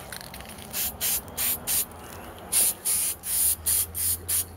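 Aerosol spray paint can hissing in a quick series of short spurts, about two or three a second, as a part is given a coat of flat black.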